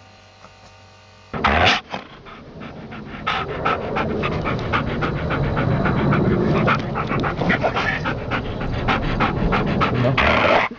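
Dog panting rapidly and steadily, close to the microphone, after a brief loud noise about a second and a half in.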